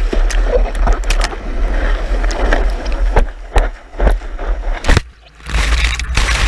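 Surf rushing and splashing around a surfboard while a wave is ridden, with wind and water buffeting the board-mounted action camera's microphone and sharp splashes striking its housing. The sound drops away briefly about five seconds in, then the rush returns.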